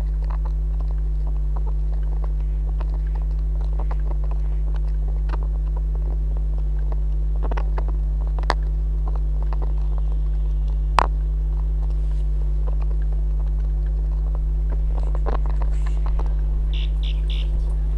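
Bicycle ride heard from a handlebar-mounted action camera: a steady low rumble with scattered clicks and rattles from the bike on the road, two sharper clicks in the middle, and a quick string of short high beeps near the end.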